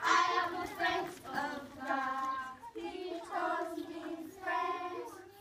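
A group of young children singing a song together in short sung phrases, about one a second, that die away near the end.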